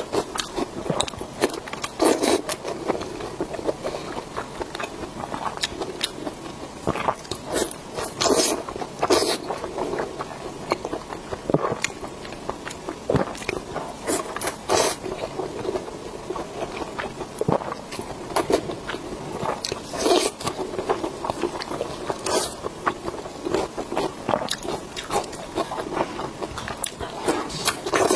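Close-miked chewing and biting of pork intestine bundles: dense, irregular chewing clicks with a louder bite every few seconds.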